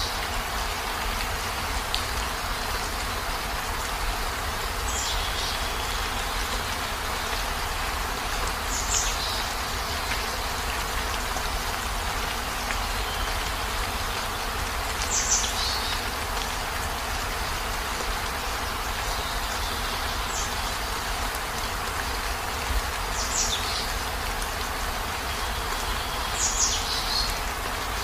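Heavy rain falling in a steady hiss, with a short high chirp every few seconds.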